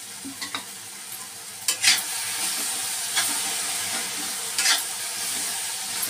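Potato and green-onion sabzi sizzling in oil in a metal kadai while a spatula stirs it, scraping and clanking against the pan. The sizzle grows louder a little under two seconds in as the stirring gets going, with sharp clanks at about two, three and five seconds.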